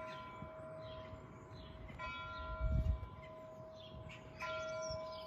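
A church bell tolling slowly: struck about two seconds in and again near the end, each stroke ringing on with a long hum. Birds chirp throughout.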